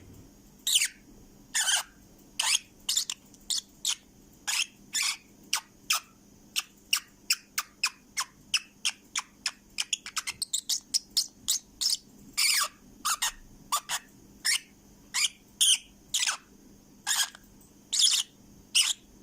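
Pet parrot singing: a long run of short, sharp chirps and whistles, a few gliding downward, coming in quick clusters around the middle.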